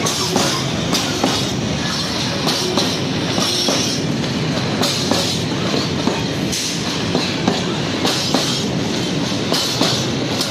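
Freight train of four-axle open gondola wagons (Eaos) rolling past close by: a steady rumble of steel wheels on rail with a regular clickety-clack as the wheelsets cross rail joints. A high wheel squeal comes and goes.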